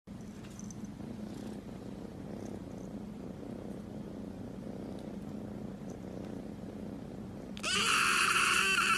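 Tabby kitten purring steadily as it is stroked. Near the end it lets out one loud, high meow lasting about a second and a half.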